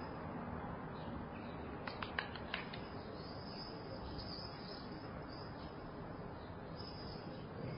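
Quiet room tone through an open balcony: a steady low hum and hiss of distant city ambience, with faint high chirps over it. A quick cluster of three or four sharp clicks comes about two seconds in.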